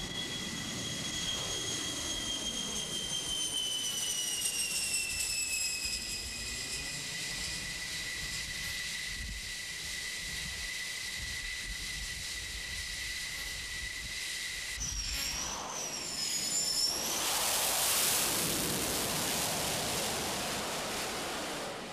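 Jet aircraft engines on an aircraft carrier's flight deck. A steady high whine runs with further whines that fall slowly in pitch, and about two-thirds of the way in a louder rushing blast of jet exhaust swells up and slowly fades.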